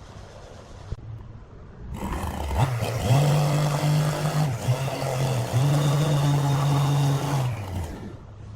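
A motor-driven power tool runs up to speed with a steady drone and a hiss over it, in two stretches with a short dip between.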